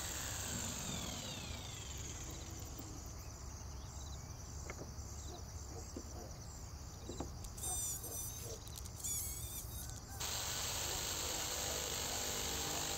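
A Bosch jigsaw winding down in the first couple of seconds after a cut through a softwood board, then a few light knocks of boards being set down on the wooden bench. About ten seconds in the jigsaw starts up again and runs steadily, cutting into the next board.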